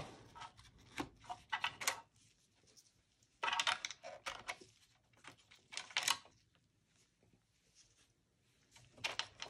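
Clicks and taps of memory modules being unlatched and pulled from the motherboard's RAM slots, in a few short clusters with quiet gaps between.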